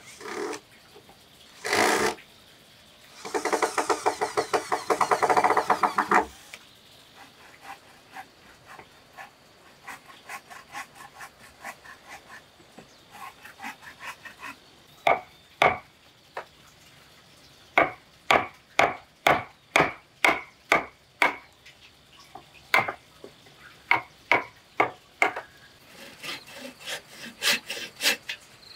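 Timber being worked with hand tools: a burst of fast rasping strokes, then a run of sharp knocks about two a second on the wood, and near the end a bow saw cutting a board in even strokes.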